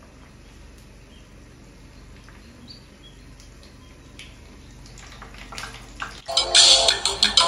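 Faint bubbling and small crackles from a halved red onion in a frying pan of oil, rising to a louder sizzle with crackling about five seconds in as a lump of paste is added. Loud music comes in about six seconds in.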